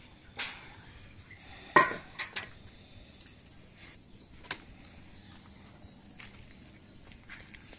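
Metal bucket knocking against the well: one loud ringing clank just under two seconds in, then a few lighter knocks.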